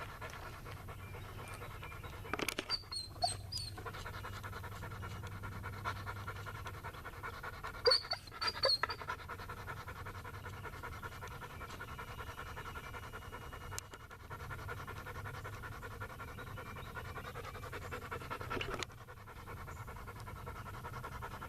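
A dog panting steadily after excitement, with a few brief sharp clicks about three and eight seconds in.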